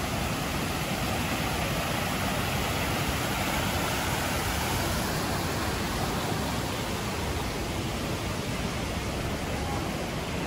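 Steady rushing of the Kibune River, a fast mountain stream flowing close by.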